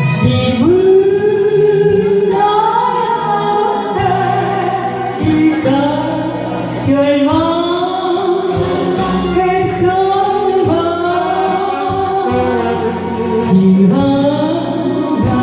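Singing over backing music: a Korean ballad cover with a sung melody line held and bent over accompaniment.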